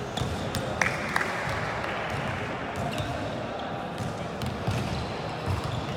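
Volleyball game sounds: sharp thuds of the volleyball being hit and bouncing, over players' voices and background chatter.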